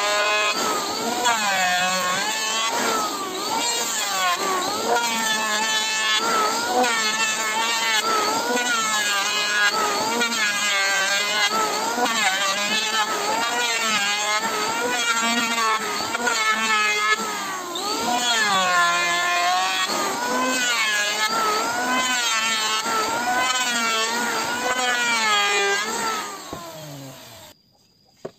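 Maktec electric hand planer running while planing a wide wooden board, its motor pitch dipping under the cut and recovering about once a second as it is pushed back and forth. The sound cuts off suddenly near the end.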